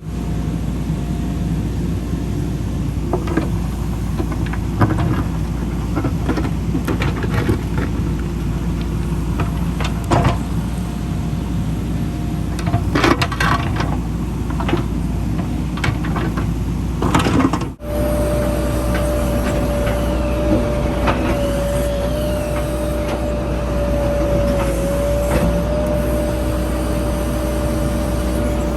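JCB 3DX backhoe loader's diesel engine running steadily under load, with scattered knocks and clanks. After a short break about two-thirds through, a steady whine sits over the engine.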